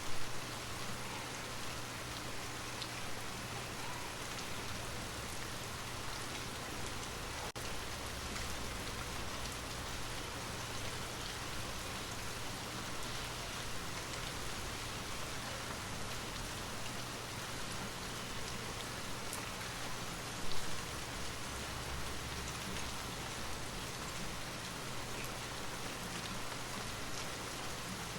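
Steady rain ambience, an even patter of rain falling on a surface, briefly louder twice.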